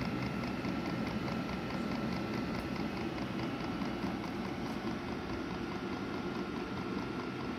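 An 8 kW diesel air heater running steadily, with a low combustion and blower rumble, a thin steady whine and a fast, regular ticking over it.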